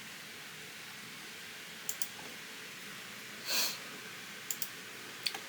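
Computer mouse clicking, in quick pairs about two seconds in and again near the end. A brief hiss about three and a half seconds in is the loudest sound.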